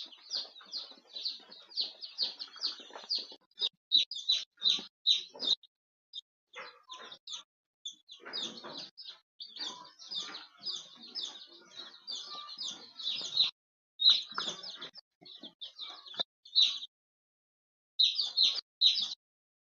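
A flock of young ISA Brown pullets chirping: many short, high calls overlapping in quick runs, with a couple of brief pauses.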